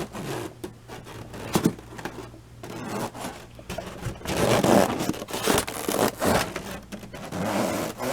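Foam ice box being handled as its foam lid is fitted on: a few sharp knocks in the first two seconds, then rough scraping and rubbing of foam on foam through the second half.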